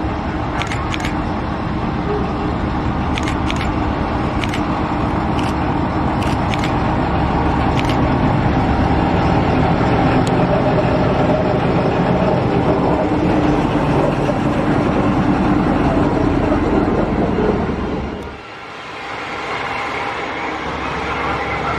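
Small diesel shunting locomotive running as it drives slowly past, its engine growing louder until it passes and then dropping away sharply about eighteen seconds in. A few sharp clicks come in the first eight seconds, and another engine rises near the end.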